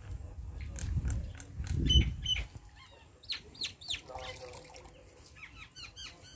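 Small birds chirping in many short, quick, falling calls, with a short honking call about four seconds in. A low rumble fills the first two seconds or so and is loudest around the two-second mark.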